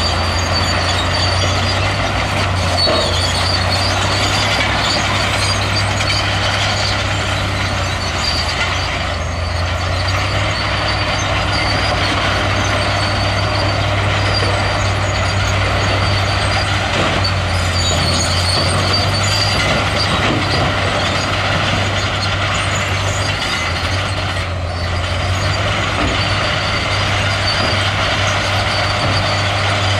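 Heavy diesel earthmoving machinery running steadily, a deep, even engine drone with a noisy rattle over it.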